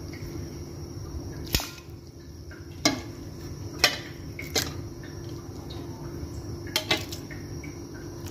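Pieces of raw pork being put into a metal pot of heating water, giving about six sharp knocks at uneven intervals over a steady low hum.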